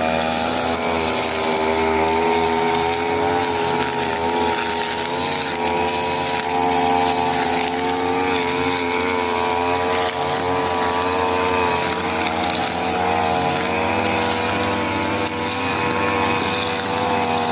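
Brush cutter engine running at high revs, its pitch wavering slightly up and down.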